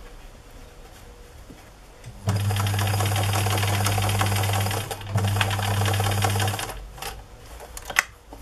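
Domestic electric sewing machine stitching a seam through layered fabric in two runs, about two and a half seconds and then about a second and a half, with a brief stop between. A single sharp click comes near the end.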